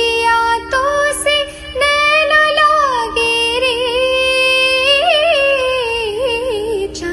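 A woman singing a slow, ornamented melody in long held notes that slide and waver in pitch, with no clear words, over a steady drone.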